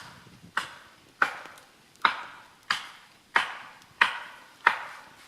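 Steady, rhythmic chopping: seven sharp blows in a row, about one every two-thirds of a second, each ringing out briefly before the next.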